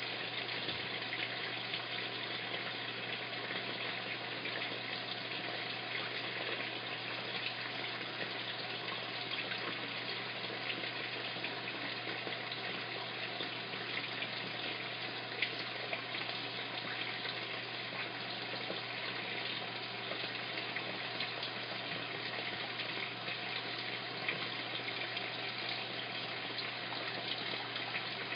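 Top-loading washing machine filling with water: a steady rush of water pouring into the drum, with a low steady hum beneath it.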